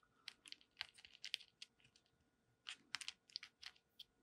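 Faint small clicks of sealing-wax beads knocking against each other and the clear plastic compartment box as fingers pick through them, in two quick flurries, the second near the end.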